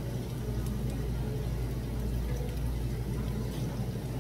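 Restaurant room noise: a steady low hum with a few faint clinks of spoon and tongs.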